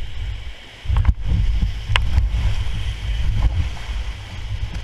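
Whitewater rapids rushing around an inflatable raft, with a heavy low rumble buffeting the action camera's microphone. A few sharp knocks come about one and two seconds in.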